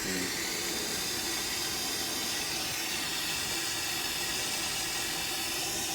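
Water running steadily, a constant hiss.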